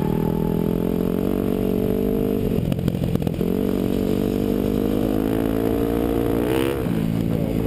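Dirt bike engine running close up at a fairly steady speed as the bike is ridden. The pitch dips briefly about three seconds in and again near the end, each time climbing back up.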